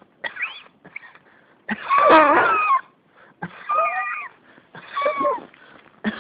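A person coughing in a fit: a few short coughs, then three longer harsh coughs about a second apart, each with a strained, wavering voice sound in it.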